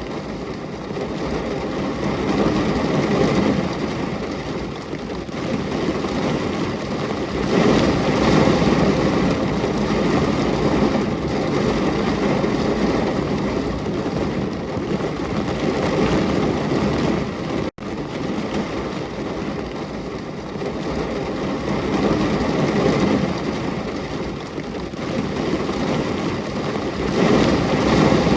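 Steady heavy rain, a dense rushing hiss that swells and eases every few seconds. It cuts out for an instant about two-thirds of the way through.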